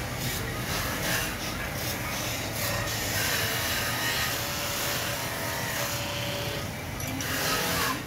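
Belt-driven metal-forming press running steadily: its motor and belt drive whir with a low hum, under a busy rattle of short metallic clicks.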